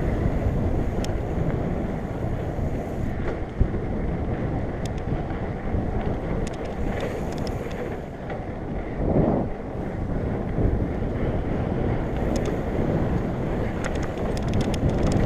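Wind buffeting the microphone of a rider moving along a dirt trail, with tyre and trail rumble and scattered sharp clicks and rattles. There is a brief louder swell about nine seconds in.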